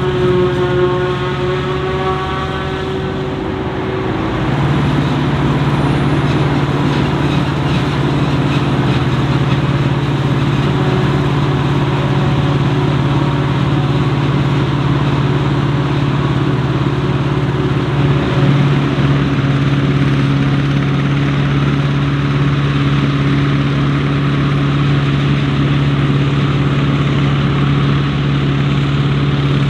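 Heavy diesel farm machinery running steadily during maize chopping, either the forage harvester or the tractors pulling silage wagons. The engine hum gets louder about four seconds in and then holds steady.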